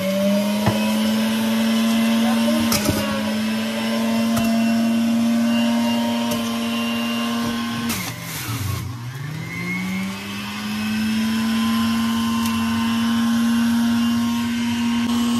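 Electric centrifugal juicer motor whining steadily as apples are pressed down the chute, with a few knocks near the start. About eight seconds in it bogs down sharply under the load of the apple, then spins back up to speed over a couple of seconds.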